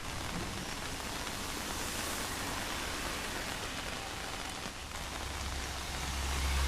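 Steady rain falling, an even hiss of many drops on surfaces. A deep low rumble swells up in the last couple of seconds.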